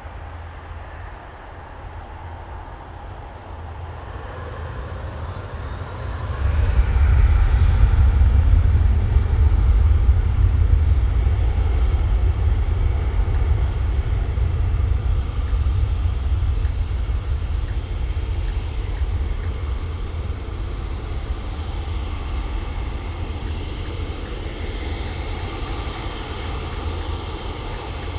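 Airbus A350's Rolls-Royce Trent XWB jet engines at takeoff power, a deep rumble with a rushing roar on top. It builds, swells sharply about a quarter of the way in, then slowly fades.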